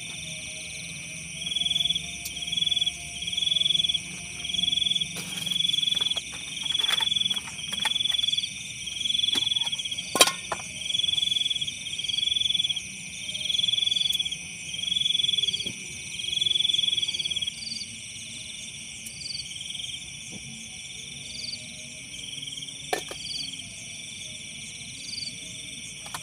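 Night chorus of insects and frogs: a steady high ringing from several insects. Over it, one nearby caller repeats a loud pulsed call about once a second for some fifteen seconds, then stops. A sharp click stands out about ten seconds in, and a fainter one near the end.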